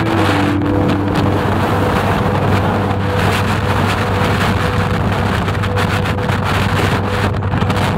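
Wind buffeting the microphone: a loud, steady rushing noise with no break.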